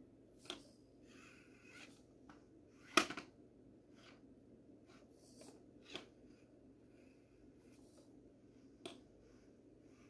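Axial SCX24 micro crawler's tyres and plastic chassis knocking and scraping against stone blocks as it crawls over them: a few sharp knocks, the loudest about three seconds in, with soft scratching in between.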